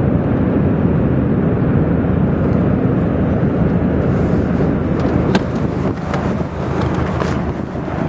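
Loud, steady roar of wind from an EF5 tornado and its rear-flank downdraft, buffeting the microphone. Sharp ticks and knocks join in about halfway through as the gusts strike the camera.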